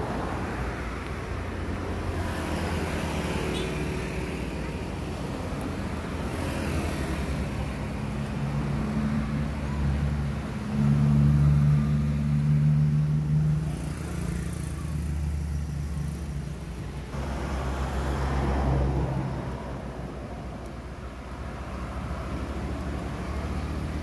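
Road traffic: motor vehicles going by with a continuous low engine hum, swelling louder about halfway through and again a few seconds later.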